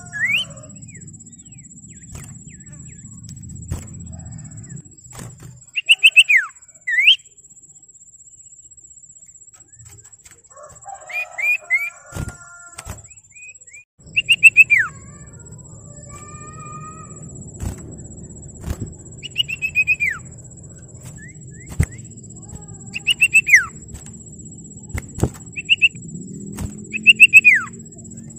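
Common iora (cipoh) calling: short bursts of quick, falling whistled notes, repeated every few seconds, with scattered sharp clicks between them.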